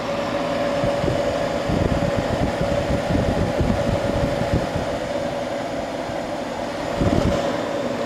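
1971 McGraw Edison Thomas Edison 6000 BTU window air conditioner running and cooling, its fan blowing air with a steady hum. Low gusty rumbling comes in for a few seconds from about a second in, and once more near the end.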